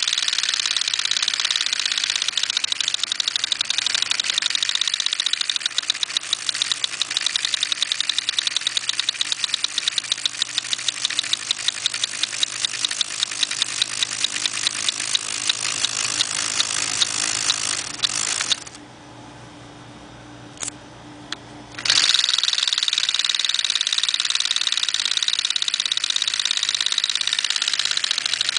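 Lego model single-cylinder engine turned by an electric fan, its plastic crank and piston parts clattering in a fast, even rhythm over the fan's low hum. About two-thirds of the way through the clatter stops for a few seconds, leaving only the hum and a couple of clicks, then starts again.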